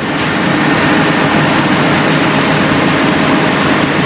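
MAN rotary web offset press running: a loud, steady, even machine din with a low drone underneath.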